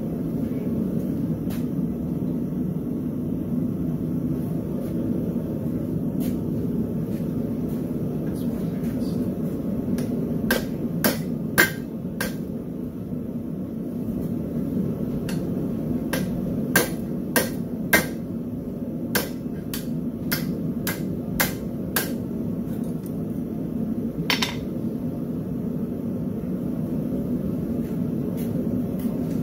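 Hammer blows on hot steel over an anvil, bending a hoof pick: about fifteen sharp strikes in short quick runs through the middle, and one more a little later. A steady low rumble runs underneath.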